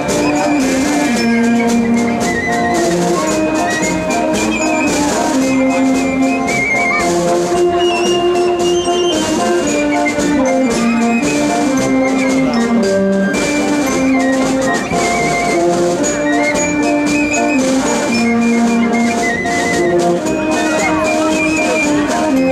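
Band music with brass and drums playing a melody of held notes over percussion.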